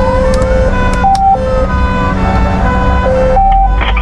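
Fire engine's electronic siren heard from inside the cab: a rising wail, then jumps back and forth between a low and a high tone, over the truck's steady engine drone.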